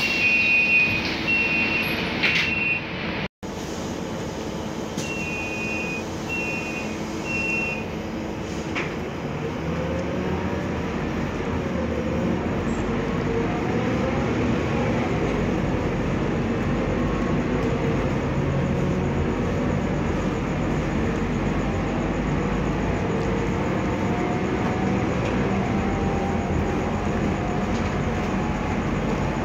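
Inside a Scania articulated city bus: high electronic beeps come in two sets of three, typical of a door warning. The bus then pulls away, and its engine and transmission whine rises in pitch through several gear steps over steady cabin and road noise.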